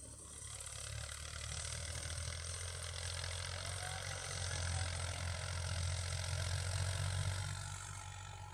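Heavy diesel machinery engine running with a steady low hum that swells through the middle and eases off near the end.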